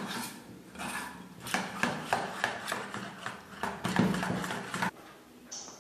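A hand beating a thick flour-and-cornflour batter in a stainless steel bowl: rhythmic wet slaps, about four a second, that stop about five seconds in.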